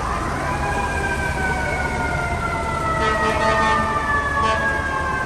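Fire truck siren on an FDNY Squad 18 rig, climbing quickly in pitch and then sliding slowly and steadily down over a low rumble. A lower steady tone joins about three seconds in.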